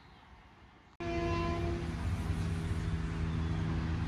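Faint wind rumble, then about a second in a Long Island Rail Road train cuts in suddenly, loud, sounding its horn. The horn is several held tones at once over the train's running rumble.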